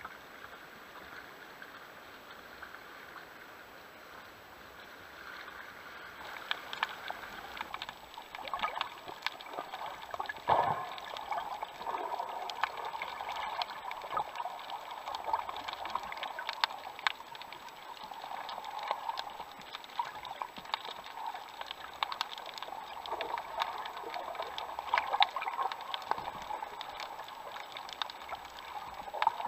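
Water sloshing and gurgling around a spearfisher's camera, first at the surface. From about six seconds in it turns to underwater gurgling and bubbling with many scattered sharp clicks and crackles.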